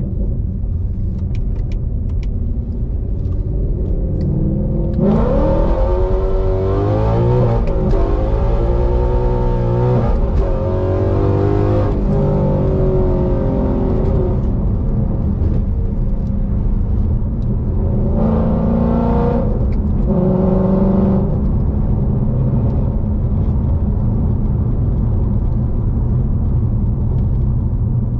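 2016 Ford Mustang GT's 5.0 Coyote V8 with Kooks headers and a Corsa Extreme exhaust, under a hard pull: the engine note climbs in pitch from about five seconds in, falling back at each gear change, and eases off around twelve seconds. A second, shorter burst of throttle comes around eighteen seconds, then the engine settles into steady running.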